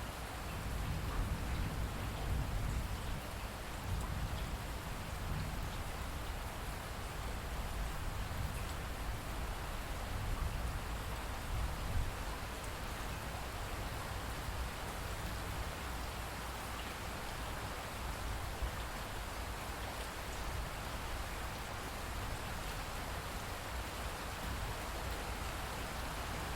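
Steady rain falling, a dense even hiss of drops, with a low rumble underneath during the first half.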